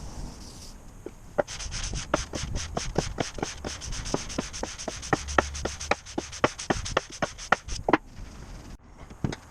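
Isuzu 4BD2T cylinder head being rubbed back and forth on wet 120-grit sandpaper glued to a flat surface, a fast, even run of scraping strokes at about four a second; the head's gasket face is being decked flat. The strokes stop about a second before the end.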